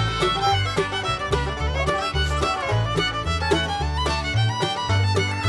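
Upbeat bluegrass-style background music led by a fiddle, over a bouncing bass line with a steady beat.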